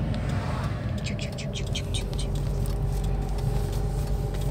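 Mazda RX-8's rotary engine and road noise heard from inside the cabin while driving, a steady low rumble with a faint steady tone. About a second in comes a quick run of short high chirps.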